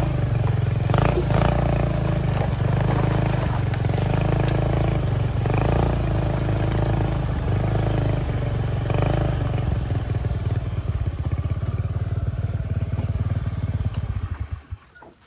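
Motorcycle engine running steadily, settling into a slow, pulsing idle and then cutting off about a second before the end.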